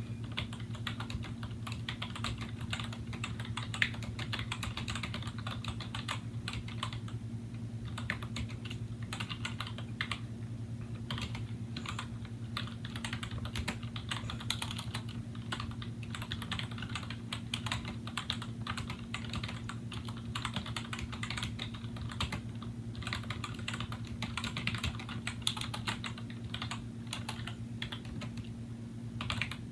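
Continuous typing on a 2000 Apple M7803 Pro Keyboard with Mitsumi dome-with-slider key switches: rapid, irregular key clicks, with a steady low hum underneath.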